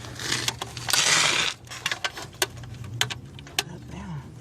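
Metal clinks, clicks and a brief scraping rustle about a second in, from hand tools, screws and panel parts as a run capacitor is worked loose inside an air-conditioning condenser. A steady low hum runs underneath.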